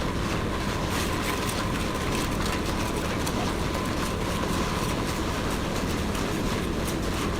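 Concrete mixer running steadily, with a continuous rattle of small clicks and a faint steady whine.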